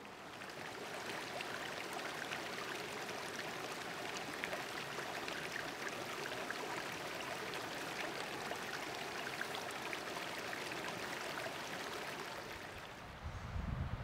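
A mountain stream running over rocks, a steady babble with small splashes. Near the end it thins out and low, gusty rumbles come in.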